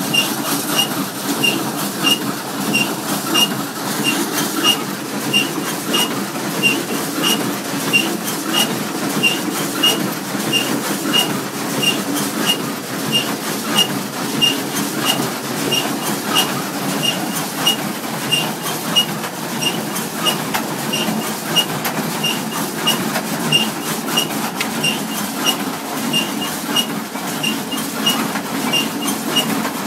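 International Harvester 430 small square baler running, clattering steadily with a sharp metallic click about twice a second.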